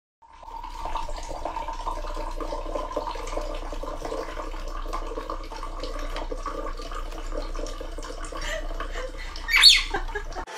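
Water pouring in a thin steady stream from a bottle into a drinking glass, splashing and trickling. Near the end a parrot gives one short, loud, rising squawk.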